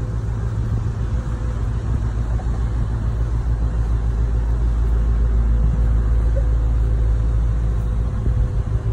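Cargo ship's diesel engine passing at close range: a steady low rumble with a hum, growing somewhat louder from about halfway in as the stern with its engine room comes level.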